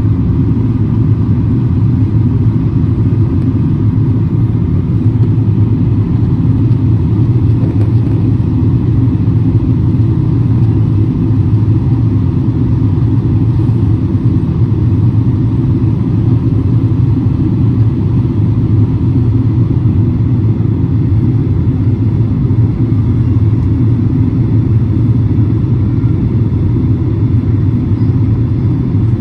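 Steady low drone of an airliner's jet engines and rushing airflow, heard inside the passenger cabin in flight.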